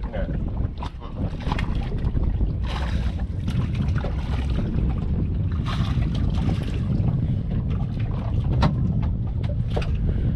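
Wind buffeting the microphone on a small boat on open water: a steady low rumble, with scattered short clicks and knocks and a couple of brief hissing gusts.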